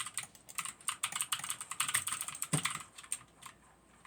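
Rapid typing on a Magic Refiner MK22 60% mechanical keyboard with clicky switches: many sharp key clicks in quick succession, thinning to a few scattered clicks after about three seconds.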